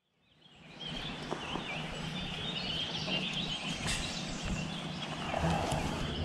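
Birds chirping continuously over a steady background rush, fading in about half a second in.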